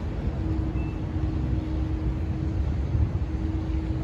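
Boat engine droning steadily as a low rumble, with a steady hum coming in about half a second in.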